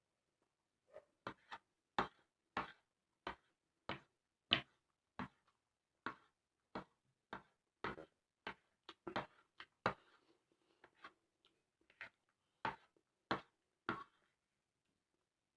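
Close-up chewing of crunchy raw vegetables: a crisp crunch about every two-thirds of a second, with a few softer, quicker ones around the middle.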